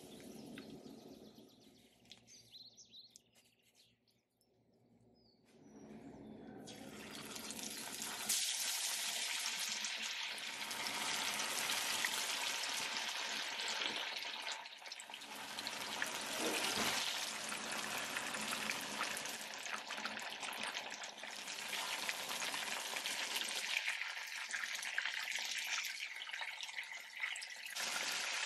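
Masala-coated pomfret fillets sizzling and crackling in hot oil in a frying pan, starting after a few near-quiet seconds and building to a steady, dense crackle.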